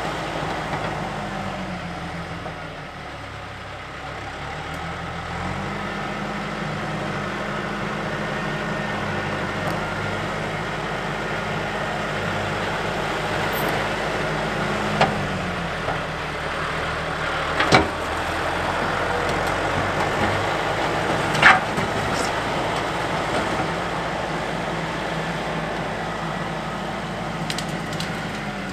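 Tractor engine running steady under way. The engine note drops about a second in, picks up again around five seconds, eases off near the middle and drops again near the end. A few sharp knocks or rattles come through partway along.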